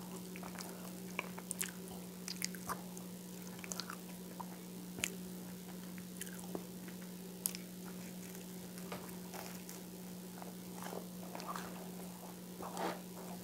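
Close-miked chewing of whole wheat toast spread with peanut butter and coconut oil: soft crunches and sharp wet mouth clicks come at irregular moments, with a denser run of chewing near the end. A steady low hum lies underneath.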